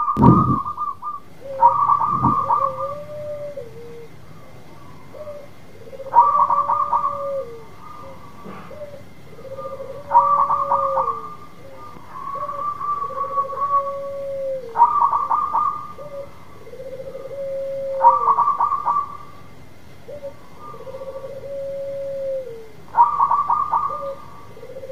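Zebra dove (perkutut) singing its cooing song over and over: each phrase is a rapid stuttering run of notes followed by a longer, lower coo, repeated every few seconds. A faint steady high tone runs underneath, with a low thump near the start.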